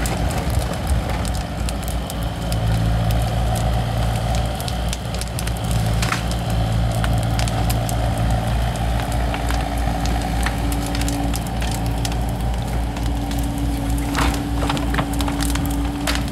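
A diesel excavator engine running steadily close by, with a steady whine coming and going in the second half, over the crackling and popping of a wood bonfire.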